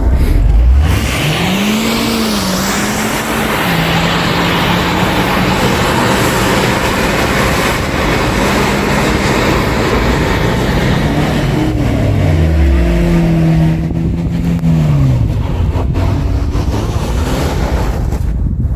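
A car engine revving up and down, twice, under a loud steady rushing noise, as a vehicle's wheels spin in deep snow.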